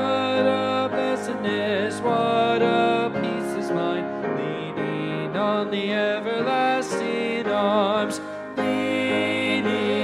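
A man singing a slow worship song with vibrato, accompanied by an upright piano.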